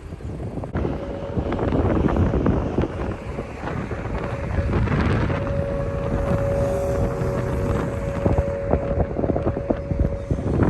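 Thunderstorm wind gusting and buffeting the microphone in a loud, uneven rumble, with a faint steady high tone held through the middle and latter part.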